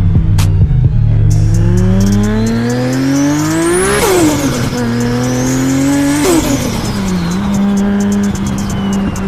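Toyota Supra's big-turbo 2JZ straight-six accelerating hard: the engine note climbs, drops sharply as at a gear change, climbs again and drops a second time, then holds a steady note.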